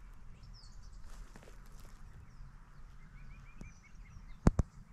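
Birds chirping outdoors over a low steady rumble, with a quick run of short repeated bird notes in the middle. Near the end come two sharp knocks a fraction of a second apart, the loudest sounds here.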